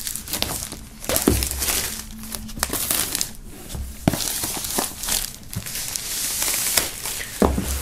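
Clear plastic shrink-wrap film being peeled off a box and bunched up by hand, a continuous crinkling rustle with sharp crackles.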